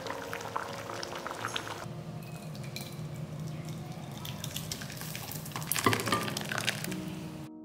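Thick sambar bubbling and popping in a steel pan, then being poured out of the pan into a serving bowl, with a few loud knocks of the pan against the bowl about six seconds in.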